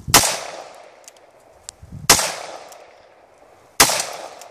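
Semi-automatic pistol fired three times, a shot roughly every two seconds, each sharp crack trailing off in a short echo.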